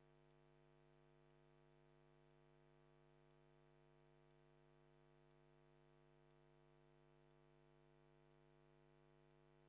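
Near silence, with only a faint, steady electrical hum made of many even overtones.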